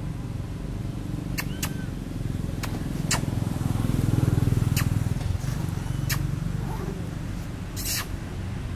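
A motor engine running steadily, swelling a little about four seconds in, with a few short sharp clicks over it.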